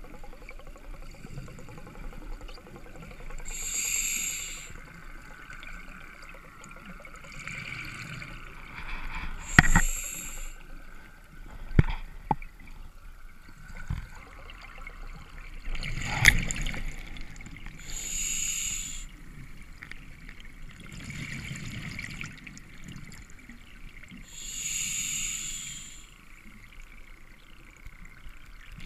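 Open-circuit scuba regulator breathing heard underwater: a burst of exhaled bubbles every six to eight seconds, with softer hissing breaths between them. A few sharp knocks of gear come in the middle.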